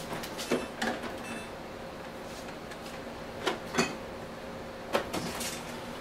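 Clicks and knocks from a stainless refrigerator's door dispenser paddle and door being worked, in three pairs a fraction of a second apart, as the freshly repaired dispenser is tested. A steady low hum runs underneath.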